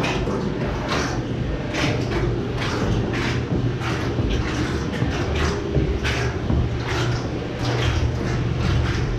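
Footsteps going down wooden stairs, about two steps a second, over a steady low machine hum.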